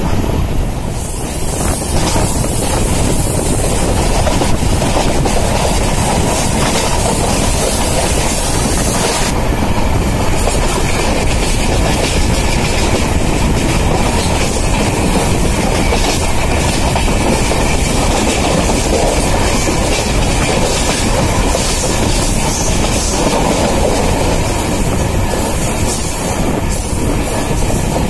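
Passenger train running along the line, heard from aboard a coach: a steady rumble and rush of the wheels on the rails with a clickety-clack over the rail joints.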